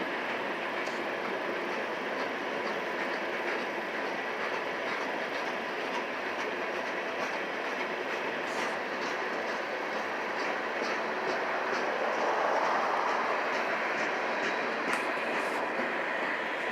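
Train cars rolling past on the rails, a steady rumble of wheels with a repeating clickety-clack of the wheels over rail joints.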